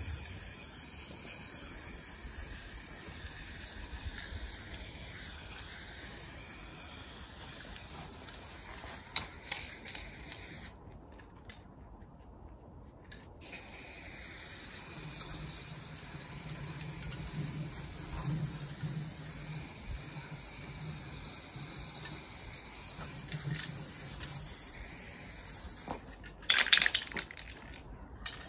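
Aerosol spray-paint can hissing on and off as black paint is sprayed onto a steel barbecue grill, with a short break in the spray about eleven seconds in. A cluster of sharp, loud clicks near the end.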